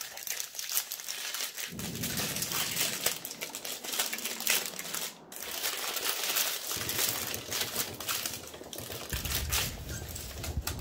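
Brown paper wrapping crinkling and rustling as it is slowly unfolded by hand from a gas mask filter, with a short break about five seconds in.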